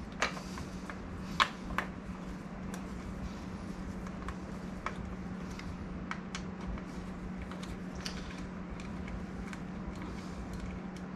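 Small metal clicks and taps of a hex key working the bolts of a disc brake caliper on a mountain bike fork, a few sharp clicks in the first few seconds and fainter ticks after, over a steady low hum.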